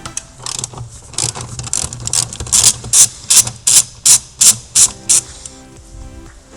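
Ratchet wrench worked in quick back-and-forth strokes, each stroke a short burst of clicking, about three a second and loudest in the middle, with background music underneath.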